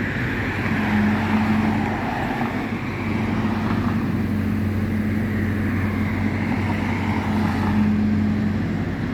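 Car driving along a road: a steady engine hum with continuous tyre and road noise.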